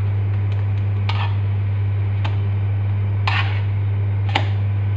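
A metal spoon scraping and tapping against a non-stick frying pan, about five short strokes roughly a second apart, as a pancake is lifted out. A steady low hum runs underneath.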